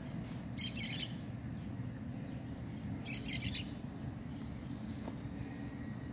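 A small bird chirping in two short bursts of rapid high notes, about a second in and again around the three-second mark, over steady low background noise.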